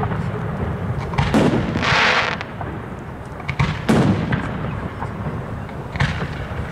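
Aerial fireworks bursting: three sharp bangs about two and a half seconds apart, with a short hiss between the first two.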